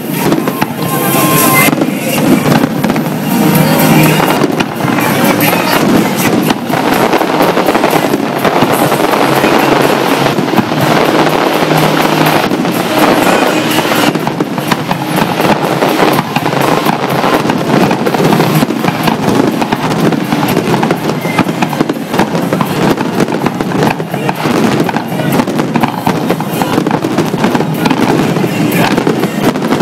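Fireworks display: aerial shells bursting in a rapid, continuous barrage of bangs and crackles.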